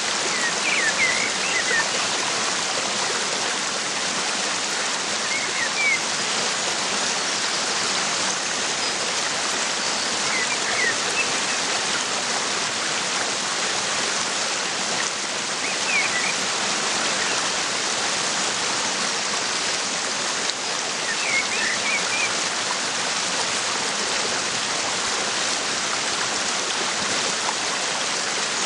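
Steady rush of a waterfall, with short bird chirps about every five seconds.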